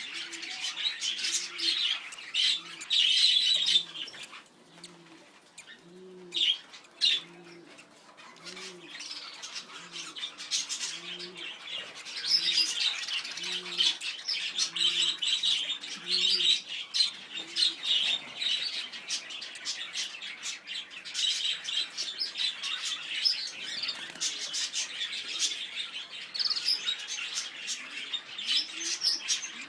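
Lovebirds chattering and chirping, with louder spells. For about the first half, a low note also repeats about once a second.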